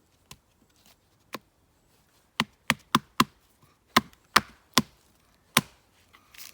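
Batoning: a wooden baton strikes the spine of a bushcraft knife to drive the blade through wood and split it. There are about ten sharp knocks, two spaced out at the start and then a quicker run in the middle.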